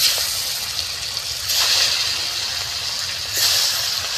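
Turmeric-coated pieces of foli fish (featherback) sizzling as they fry in hot oil in a kadai. The sizzle surges louder three times, at the start, about a second and a half in and near the end, as more pieces are slid into the oil.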